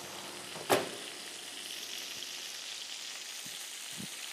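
Sausages frying in a pan: a steady sizzle, with one sharp knock under a second in.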